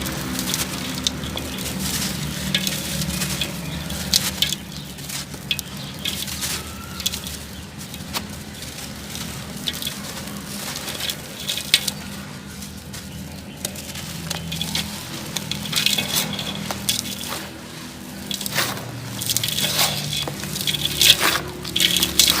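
Chunks of sand-cement crumbling and crunching as they are crushed by hand: a continuous crackle of small crunches and clicks, with a few sharper snaps, busiest near the end.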